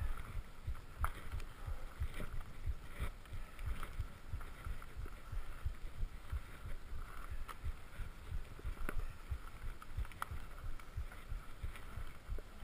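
A GoPro action camera jolted along on a mountain bike over a rough dirt singletrack: a constant low, irregular rumble of knocks from the trail shaking the camera, with scattered sharp clicks and a faint hiss of tyres and wind.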